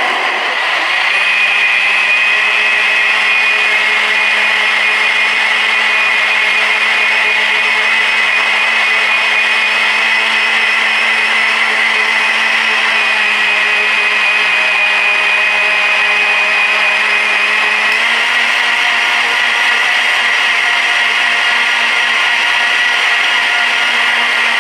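Electric blender running continuously as it purées watermelon chunks into juice. The motor sound is steady, and its pitch steps up slightly about eighteen seconds in.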